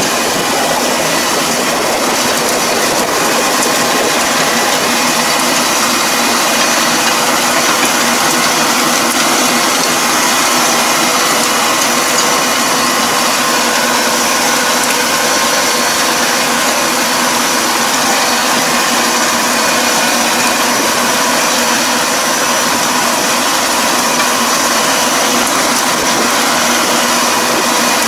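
Tractor engine running steadily under load while its rear-mounted drive harrow churns through a flooded rice paddy, puddling the mud. An even mechanical din with faint steady whining tones in it.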